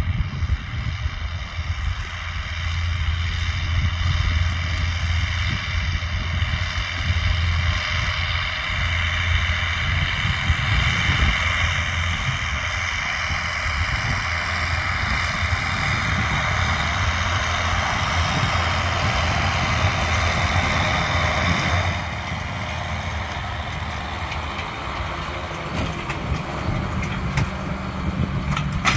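John Deere 6930 tractor's six-cylinder diesel engine running steadily under load while pulling a Marsk Stig tillage cultivator through the soil. The sound drops abruptly in level about three quarters through.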